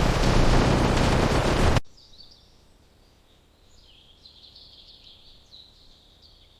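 A loud, steady rushing noise that cuts off abruptly about two seconds in, followed by faint, scattered bird chirps.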